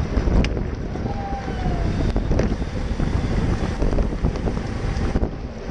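Wind buffeting the microphone of a bike-mounted GoPro as it rides in a racing pack, a steady low rumble with scattered clicks.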